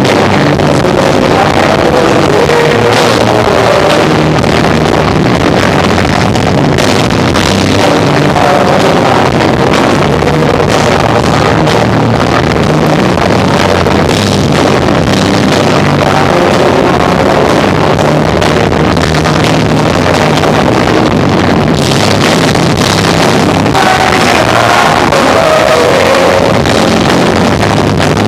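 Live rock trio of electric guitar, bass and drums playing, picked up as a loud, muddy, overloaded recording.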